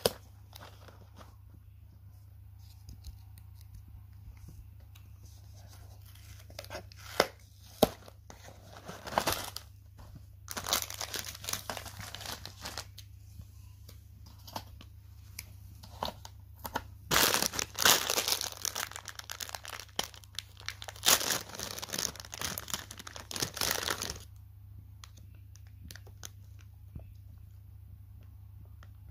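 A black plastic inner pouch being handled and pulled open by hand: several bursts of crinkling and tearing lasting a few seconds each, after a few sharp clicks near the start, over a steady low hum.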